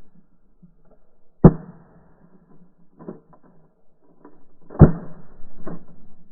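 Shotgun shots: two loud blasts about three and a half seconds apart, each with a short echoing tail, and quieter shots between them and just after the second.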